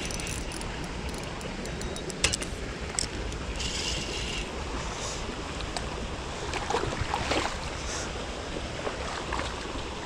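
Steady rushing of a shallow river flowing over riffles, with a few light clicks.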